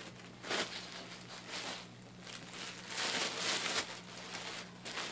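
Clear plastic packaging bag crinkling and rustling in several bursts as fleece bedding is handled and pulled out of it, loudest about three seconds in.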